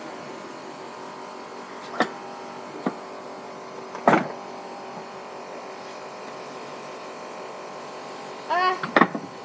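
A few sharp knocks off-picture, about two, three and four seconds in, the last the loudest, over a steady low hum; a voice calls out briefly near the end.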